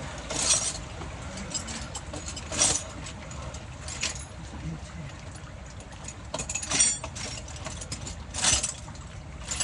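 Hand tools and sockets clinking against metal about five times, sharp and separate, over a steady hiss of rain.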